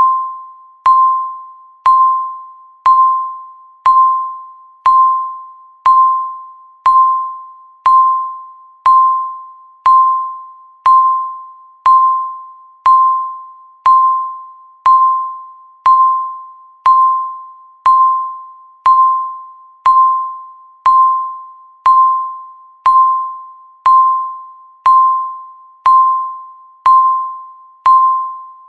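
Countdown timer beeping once a second: a single clear electronic tone that starts sharply and fades away before the next, marking each second left.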